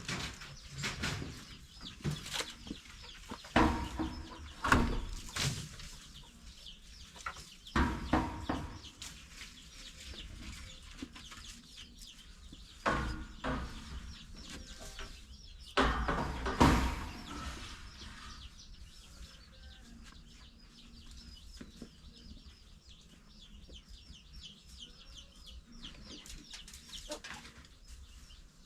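Chickens clucking, with several loud, sharp knocks and clatters spread through the first two-thirds.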